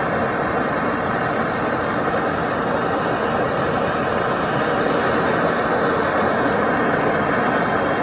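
Gas torch flame running steadily as it preheats a thick aluminium workpiece before TIG welding, driving off the condensation that forms on the metal.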